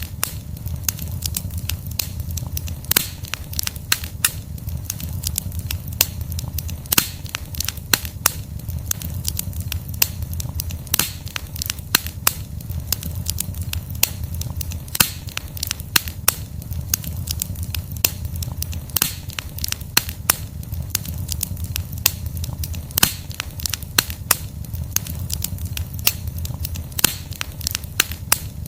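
Burning log fire crackling, with frequent sharp, irregular pops of the wood over a steady low rumble of the flames.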